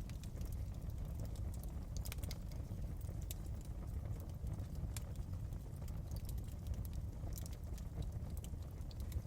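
Wood fire crackling in a fireplace: scattered sharp pops and snaps, irregular and never ceasing, over a steady low rumble.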